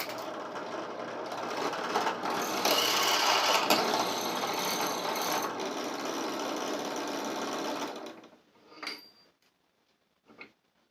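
Electric drill running under load, boring a hole through a metal bar clamped in a vise. It starts abruptly, runs steadily for about eight seconds, then winds down, and two short knocks follow near the end.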